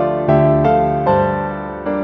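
Solo piano music: a slow melody of single struck notes, a new one about every half second, each ringing and fading.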